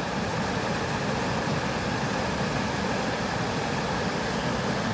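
Steady rush of falling water, a constant even hiss with no breaks.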